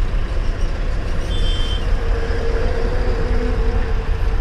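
Diesel engine of a BharatBenz 4023 truck idling, a steady deep rumble heard inside the cab. A short high beep sounds about a second and a half in.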